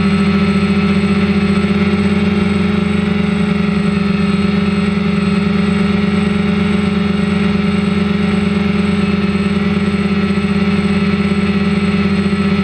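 DJI Phantom quadcopter's motors and propellers humming steadily in flight, heard loud and close from the camera mounted on the drone.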